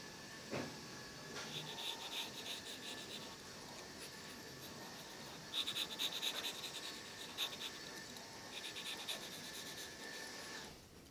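Graphite pencil scratching on paper in quick, short sketching strokes, coming in three spells of rapid scratches.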